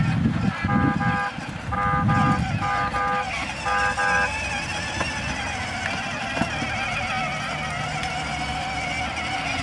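Battery-powered ride-on toy car sounding its electronic horn in four short beeps in the first few seconds, then a steady wavering run of the toy's motor and wheels as it drives.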